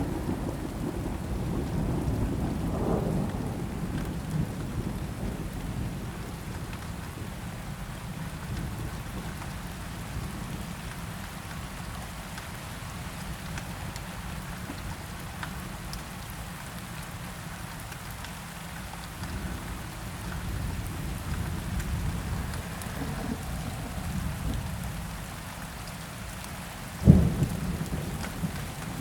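Thunderstorm: steady rain under low rolling thunder that ebbs and swells again. Near the end a single sharp thunderclap is the loudest sound.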